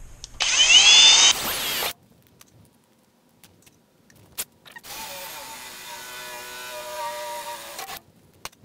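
Kobalt cordless drill boring through the sheet-metal firewall, the bit squealing loudly with a rising whine for about a second and a half. After a pause with a click, the drill runs again for about three seconds at a steadier, lower pitch.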